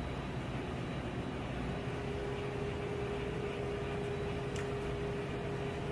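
Steady hum of running room equipment such as a fan or refrigeration unit. A faint steady tone joins the hum about two seconds in, and there is a faint click near the end.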